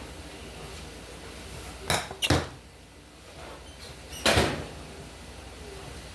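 Three short knocks in a kitchen: two close together about two seconds in, and a louder one just after four seconds, like a cupboard or door being shut.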